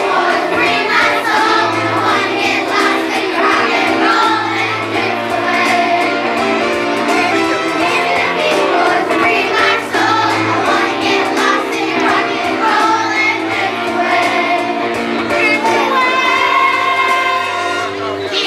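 Children's chorus singing a song over an instrumental accompaniment with a steady bass line.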